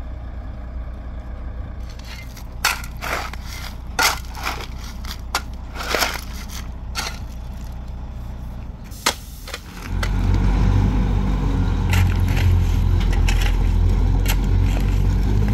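Steel shovel scraping and stabbing into loose stony gravel several times, over a dump truck's diesel engine running. About ten seconds in the truck's engine gets much louder and stays loud.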